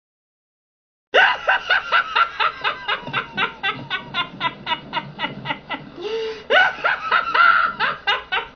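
A person's cackling laugh: a fast run of short 'ha's, about four a second, starting a second in after silence, with a higher, drawn-out stretch near the end.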